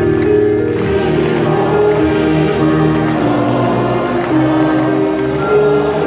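A hymn sung by a choir or congregation with instrumental accompaniment, long held notes moving from one to the next.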